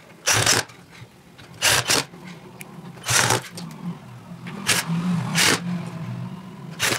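Six or so short, sharp scraping strokes from a hand tool and wire being worked against a home-theatre subwoofer cabinet, with a faint low hum underneath in the second half.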